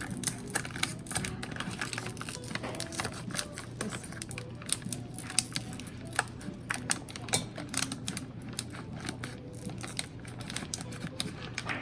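Rapid, irregular clicks and taps, several a second.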